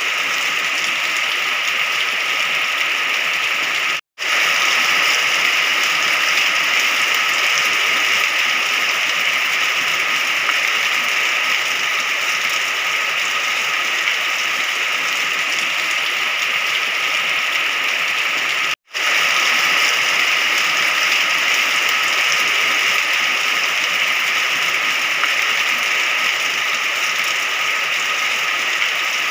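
Steady rain, an even hiss of falling water with no let-up. It cuts out to silence for a split second twice, about four seconds in and again about nineteen seconds in.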